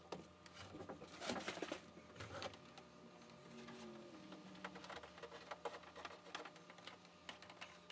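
Faint, quick, scattered taps and clicks of electrical wire being handled and pulled against wooden framing, sped up to three times speed, over a faint steady hum.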